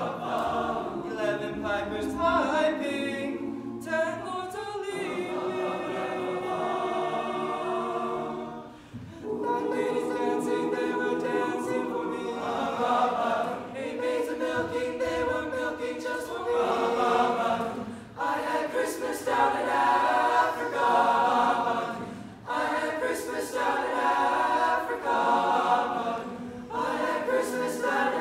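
Boys' choir singing a cappella, with short breaks between phrases about nine, eighteen and twenty-two seconds in.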